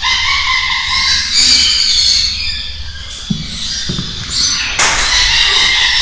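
Parrots squawking and screeching, many calls overlapping without a break.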